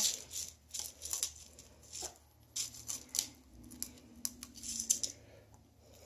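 Cardboard tube coated in peanut butter being rolled and pressed into dry cereal flakes and bread pieces on a plate: quiet, scattered crunchy rustles and small clicks.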